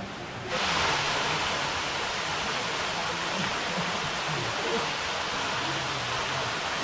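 Waterfall: a steady rush of falling water that cuts in abruptly about half a second in.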